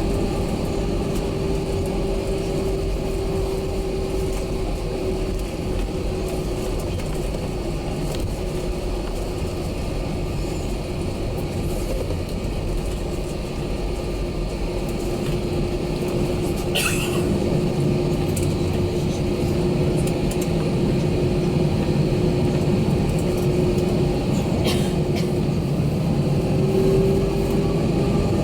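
Cabin noise of an Airbus A320 on the ground, its jet engines running with a steady drone and a whine; the whine climbs in pitch near the end. A short click about two-thirds of the way through.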